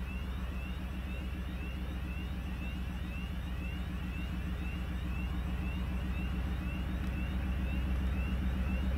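M62 diesel locomotive's two-stroke V12 diesel engine running as the locomotive pulls away with its freight train, a deep steady drone that grows gradually louder as it approaches. A short rising high chirp repeats over it throughout.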